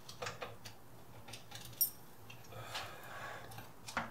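Faint scattered clicks and light jingling of small metal objects, with one sharp tick a little under two seconds in and a soft rustle a little later.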